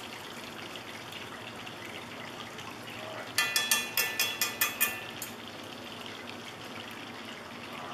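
Squirrel pieces in cornstarch batter sizzling steadily in hot oil in a cast iron skillet. About three seconds in comes a quick run of about eight sharp metallic clicks lasting under two seconds.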